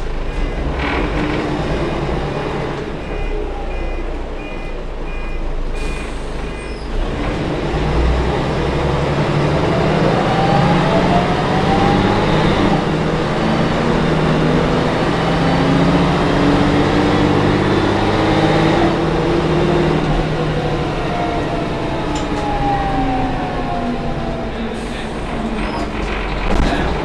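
Rear-mounted Mercedes-Benz OM 407 h naturally aspirated inline-six diesel of a city bus, heard from inside the cabin: running quietly at first with an intermittent high beep, then its note climbs twice as the bus pulls away, and near the end it falls back.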